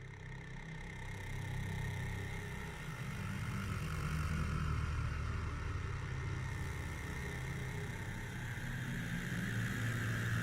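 Hardware-synthesizer ambient FX texture: a dense, low, engine-like rumble with a hissing, filtered band that drifts slowly up and down in the upper middle. It swells in over the first couple of seconds, then holds steady.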